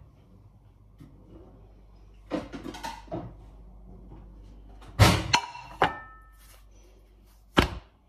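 A ceramic plate set down on a stone countertop with a sharp clatter about five seconds in, ringing briefly as it settles, followed by a second clink and another knock near the end. A few softer handling sounds come before it.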